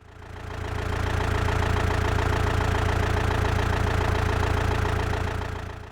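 Tractor engine running steadily with a low, evenly pulsing rumble. It fades in over about the first second and fades out near the end.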